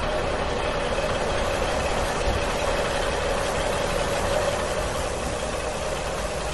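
Steady truck engine running at idle, an even hum with a faint steady whine.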